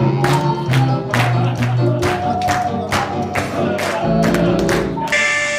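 Live band music with singing and a fast, steady beat of about four strokes a second. About five seconds in it cuts abruptly to an ocarina ensemble holding a sustained note.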